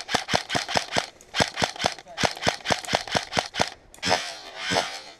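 Airsoft rifle firing fast strings of sharp shots, about six a second with brief pauses, stopping near the end.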